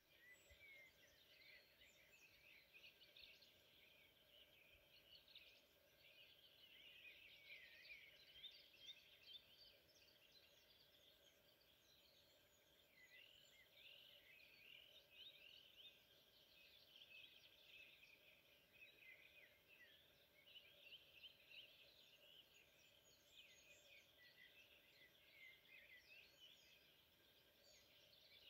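Faint songbirds singing in the forest: many overlapping short chirps and trills with no break, over a low steady hiss.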